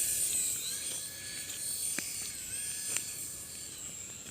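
Small electric rotor motors of a toy RC helicopter whining at a high pitch in flight, the pitch wavering slightly as it hovers, with a couple of faint ticks.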